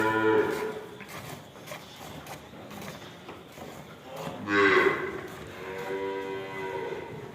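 Gir cattle mooing: a call trails off at the start, a short loud moo comes about four and a half seconds in, and a longer, steadier moo follows.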